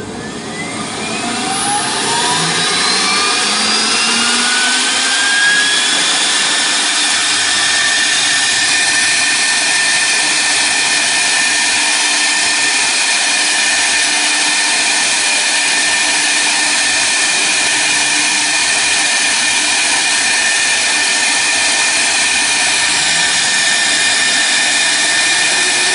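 CNC router spindle spinning up, a whine rising in pitch over the first five or six seconds, then running at steady speed with an even high whine and hiss.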